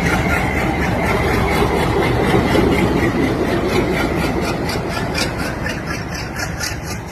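Heavy machinery or an engine running steadily, with a regular pulse of about four beats a second, fading gradually near the end.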